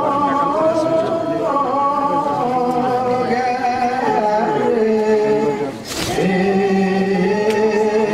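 Voices chanting an Ethiopian Orthodox mezmur through microphones, in long held notes that slide from one pitch to the next. There is a brief break with a sharp click about six seconds in.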